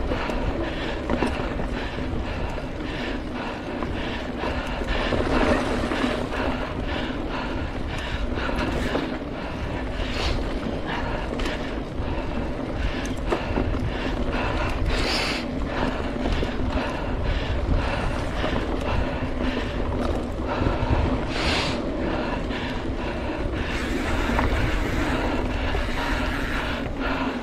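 Mountain bike ridden along a dirt trail: steady tyre and riding noise with frequent clicks and rattles from the bike over bumps, and wind on the microphone.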